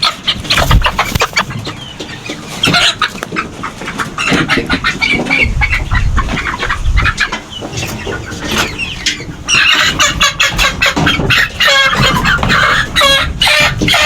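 Chickens clucking among scuffling and knocks as the birds are handled; the clucking gets louder and busier about two-thirds of the way through.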